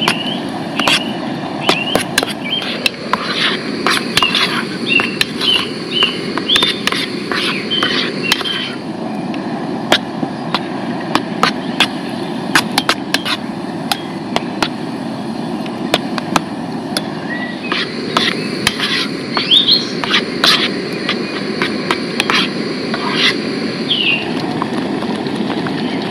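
Metal spoon stirring in an aluminium camping pot of chili heating on a small gas cartridge stove: many short clinks and scrapes over a steady low rush. Birds chirp in two stretches, early on and again later.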